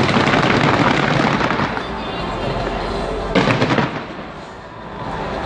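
Fireworks crackling and bursting: a dense crackle for about the first two seconds, then another sharp burst about three and a half seconds in.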